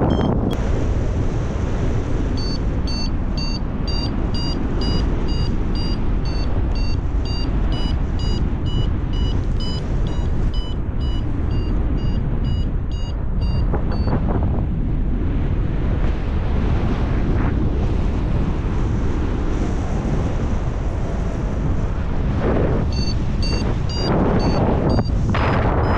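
Paragliding variometer beeping about three times a second, the sign of the glider climbing in rising air, over loud wind noise on the microphone. The beeping stops for several seconds in the middle and resumes near the end.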